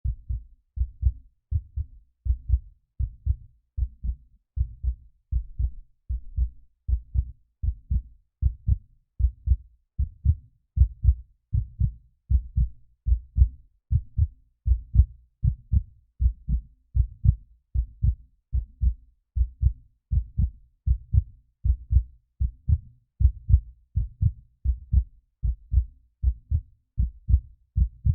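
Heartbeat sound effect: steady, low double thumps (lub-dub) repeating evenly a little over once a second.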